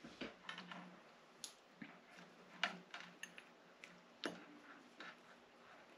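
Faint, scattered light clicks and taps of a small plastic switch assembly and its wiring connector being handled, about one or two a second, over a faint steady low hum.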